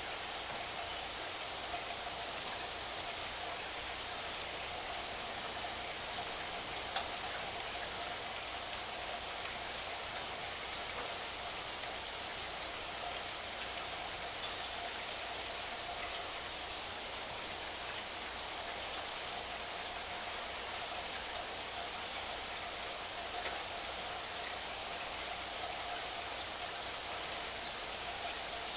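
Steady rain: an even hiss with scattered drops ticking here and there.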